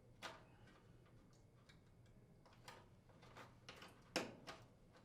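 Faint, scattered clicks and taps of wire terminal connectors being handled and pushed onto an oven door switch's terminals, the loudest about four seconds in.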